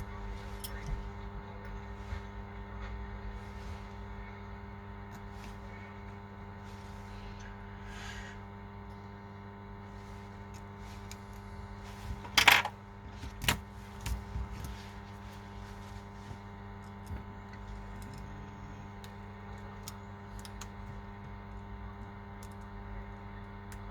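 Steady electrical hum with scattered faint clicks and taps, and two louder sharp clacks about halfway through.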